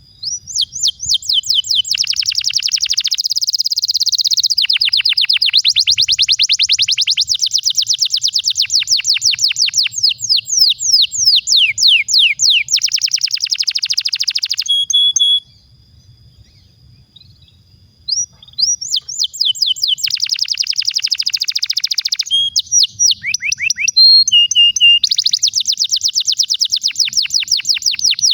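Domestic canary singing long rolling trills: fast runs of rapidly repeated sweeping notes, with a short pause about halfway through before the song resumes.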